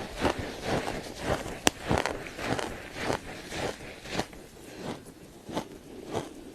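Freezer frost being bitten and chewed: a run of crunches, roughly two a second, with one sharp click about a second and a half in.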